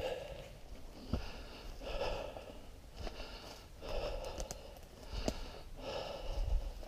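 A person breathing heavily while walking uphill, with a loud breath about every two seconds. A couple of sharp snaps of footsteps on the forest floor come in between.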